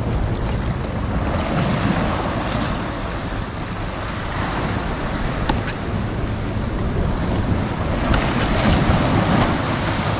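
Sea swells washing and breaking against a rocky shoreline, rising and easing in surges, with wind buffeting the microphone. A couple of faint sharp clicks come through in the middle.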